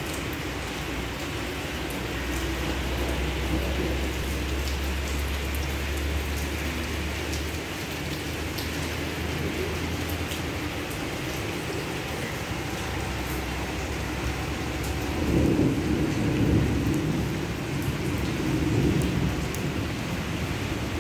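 Heavy rain falling steadily on a flooded paved yard, hedges and trees. A deeper, low rumble swells about three-quarters of the way through.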